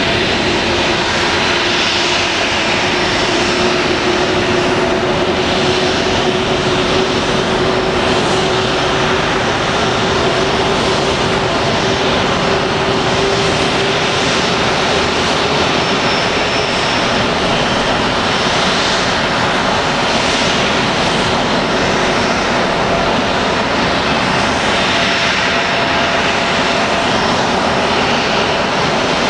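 Boeing 737-500 jet running on the ground: a loud, steady, even rush with a faint steady hum underneath that fades about halfway through.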